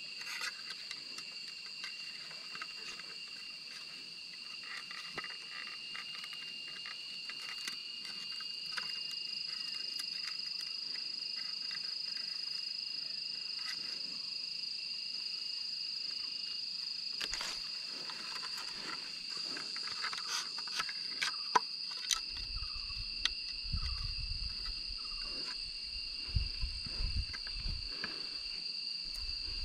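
A steady insect drone in two high, unchanging tones, with small clicks and rustles as bamboo strips are wound and tied by hand. In the last third, low thumps and leaf rustle as the branches are reached into.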